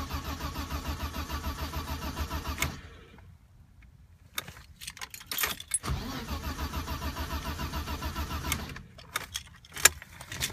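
1988 BMW 325is's 2.5-litre straight-six cranked over by the starter in two bouts of about three seconds each, turning over evenly but never catching: a crank, no-start condition. Sharp clicks come between the bouts and after the second.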